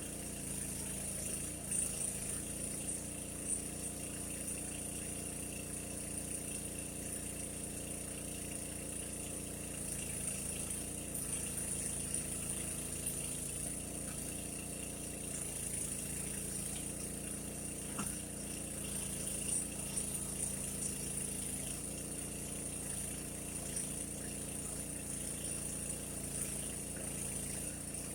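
Mini backhoe's small engine running steadily at a constant speed, with a faint steady high whine above it and one sharp click about two-thirds of the way through.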